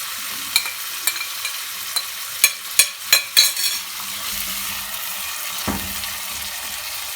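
Thinly sliced onions frying in hot oil with garlic and cumin seeds: a steady sizzle. A spoon clicks and scrapes against the pot several times in the first half while the onions are stirred.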